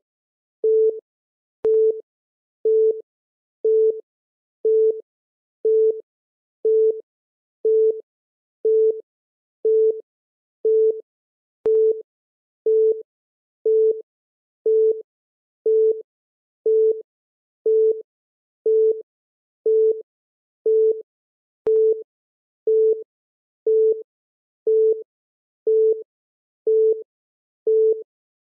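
Countdown timer beeping once a second, a short low electronic tone with each tick of the count.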